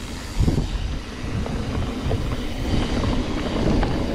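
Mountain bike rolling along a dirt trail, with low wind rumble on the microphone, tyre noise and a few knocks and rattles from the bike. It grows louder from about a second in as the bike picks up speed.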